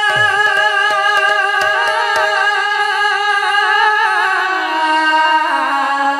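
A woman singing a long, drawn-out kirtan note with heavy vibrato into a microphone; the pitch steps down near the end.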